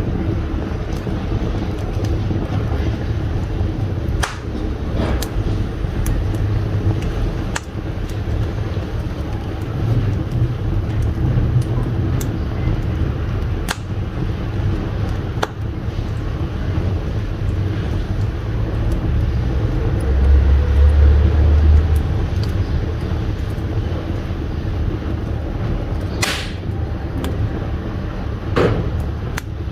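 Wood fire burning in a brick wood-burning stove: a steady low roar with sharp crackles and pops scattered through it, the loudest near the end.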